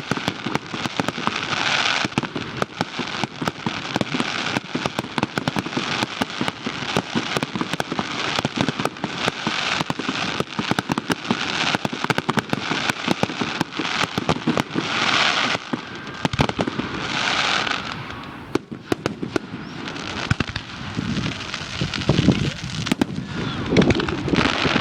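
Fireworks going off in quick succession: a dense run of sharp pops and bangs with crackling between them, easing briefly about three-quarters of the way through before picking up again.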